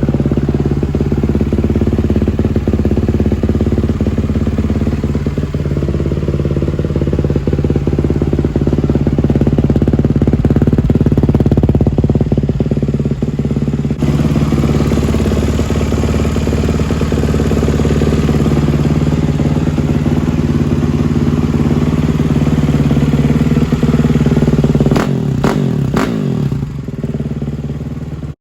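2020 Kawasaki KX450's single-cylinder four-stroke engine idling steadily, warm, through a Pro Circuit TI-6 titanium header and silencer. Near the end come a few sharp cracks as the pitch shifts, then the sound falls away.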